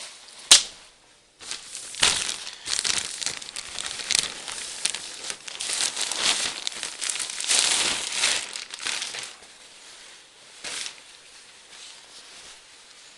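A single sharp knock about half a second in, then plastic packaging crinkling and rustling for several seconds as the jackets are pulled out of their wrapping, dying down near the end.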